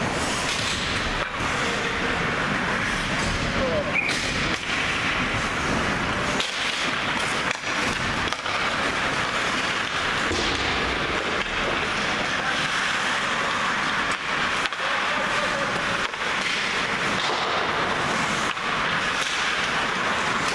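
Ice hockey in play in an echoing rink: skates scraping on the ice, with frequent sharp clacks of sticks and puck, and voices in the background.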